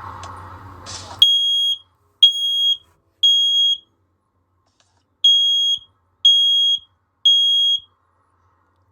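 First Alert Onelink hardwired smoke alarm sounding on test: a high-pitched beep in the temporal-three evacuation pattern, three beeps, a pause, then three more, starting about a second in.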